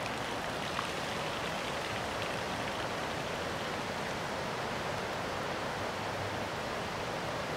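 Steady rain falling on standing floodwater, an even unbroken hiss.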